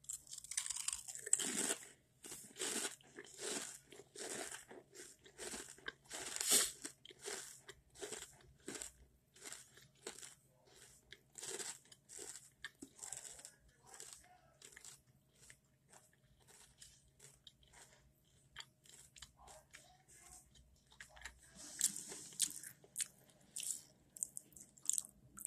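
Pringles Scorchin' BBQ potato crisp being bitten and chewed: a long run of sharp crunches, loudest over the first few seconds, with softer chewing after.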